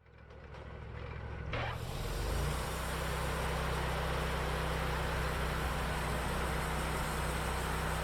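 Wood-Mizer LT40 bandsaw mill running as it takes a pass through a shagbark hickory log. The engine sound builds over the first two seconds, then holds a steady, even drone.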